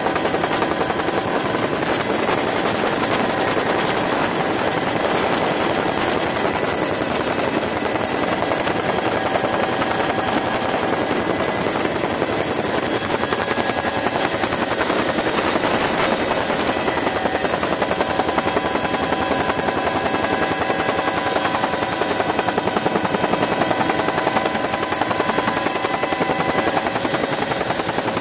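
Bell UH-1 Huey helicopter in flight, heard from the cabin by the open door: a steady, loud turbine-and-rotor noise with several held whining tones and a fast, even rotor beat.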